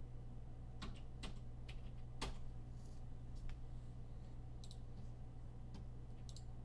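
Scattered, irregular clicks of computer keys being pressed, over a steady low hum.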